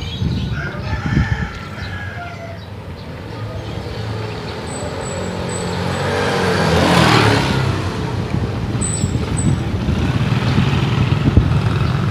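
A motor scooter with two riders passing close by in the opposite direction: its engine noise swells to a peak about seven seconds in and then fades, over a steady low rumble.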